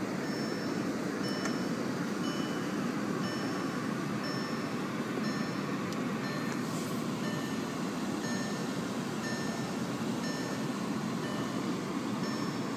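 Volkswagen Jetta SportWagen's dashboard warning chime repeating quick short beeps over a steady low hum, with the driver's door open and the key in the ignition.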